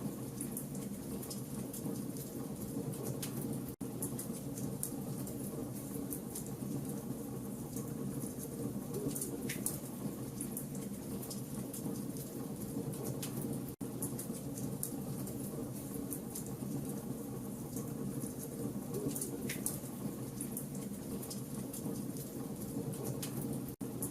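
Wood fire burning in a fireplace: a steady low rush with scattered sharp crackles and pops. The sound cuts out for an instant three times, about ten seconds apart.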